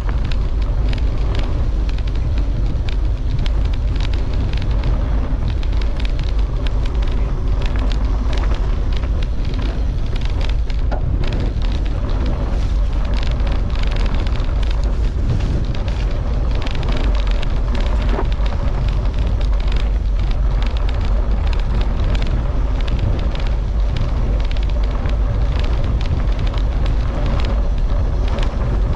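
Wind buffeting the action camera's microphone as a mountain bike descends a rough dirt track at speed, with a steady heavy rumble and the tyres and bike crackling and rattling over the bumps.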